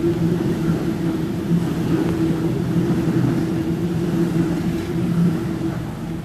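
A Waratah (A set) double-deck electric train passes at speed through the platform, with a steady low hum over wheel rumble. The sound fades near the end as the rear of the train moves away.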